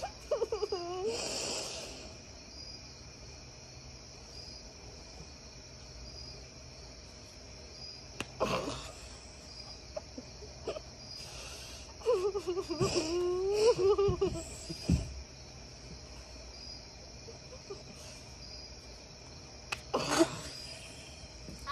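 A tortilla slapping against a face in a few sharp smacks, near the start, about eight seconds in and near the end. Between them come strained, squeaky bursts of stifled laughter, and crickets chirp steadily about once a second.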